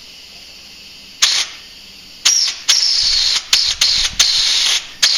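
Compressed air from a blow gun hissing through a dirt bike carburetor's fuel inlet passage in a series of short blasts, one held longer, starting about a second in. The passage has just been cleared of a clog.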